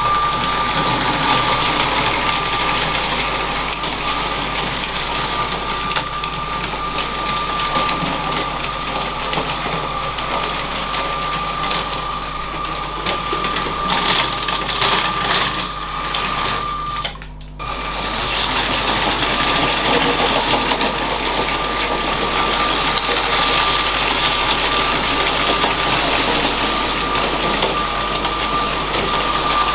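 LEGO train running on plastic track: a small electric motor whines steadily over the rattle and clicking of the wheels. The sound drops out briefly a little past halfway, then resumes.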